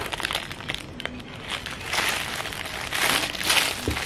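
Clear plastic packaging crinkling in several swells as a shirt in its sealed plastic bag is handled, with a soft thump near the end.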